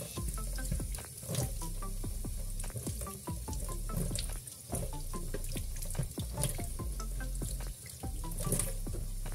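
Tap water running and splashing into a stainless steel sink as raw chicken pieces are rubbed and rinsed by hand under the stream, with background music.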